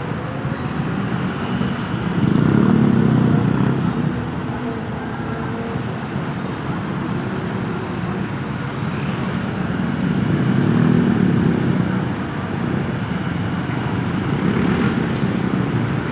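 Road traffic: motor vehicles driving past, their engine and tyre noise swelling and fading three times as vehicles go by, about two, ten and fifteen seconds in.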